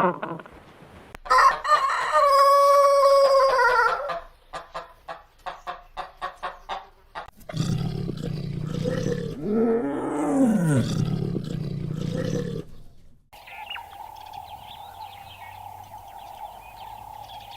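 A rooster crowing once, its call falling in pitch at the end, followed by a quick series of short clucks. After that come a longer, rougher animal call that rises and falls, and then a steady even drone.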